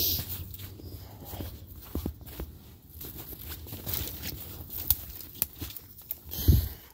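Footsteps of a person walking on a dirt trail: irregular scuffs and clicks, with a louder low thump near the end.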